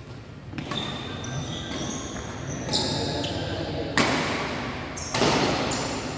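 Badminton rally in a hall: rackets hitting the shuttlecock several times, the sharpest hits about four and five seconds in, with short high squeaks from shoes on the court floor between them.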